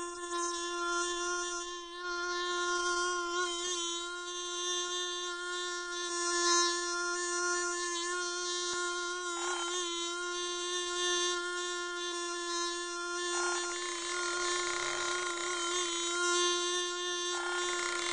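A bee buzzing in one steady drone that wavers slightly in pitch. A short rush of noise comes about halfway through, and longer ones come in the last few seconds.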